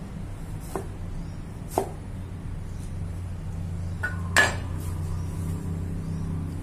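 Cleaver chopping through a tomato onto a wooden cutting board: two knocks about a second apart. Just after four seconds in, the cleaver is set down on the board with a clank and a brief metallic ring.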